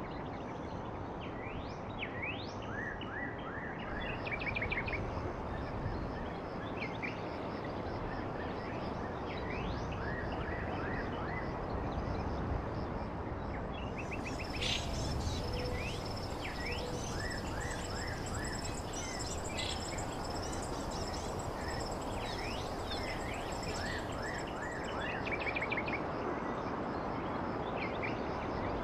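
Small birds chirping and trilling in short calls, over a steady outdoor background noise.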